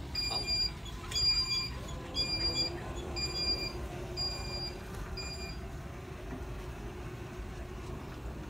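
Shopping cart rolling across a hard store floor, a steady low rumble and rattle. Short high beeps at a fixed pitch repeat a little more than once a second through the first half, then stop.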